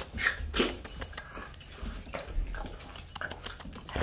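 Boston terrier puppies whimpering, a few short high cries, amid light scuffling.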